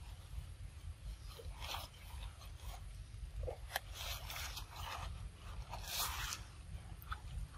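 A macaque biting and chewing soft yellow fruit: short wet, crunchy bites come in scattered bursts, the loudest a little after four seconds and again about six seconds in, over a low steady rumble.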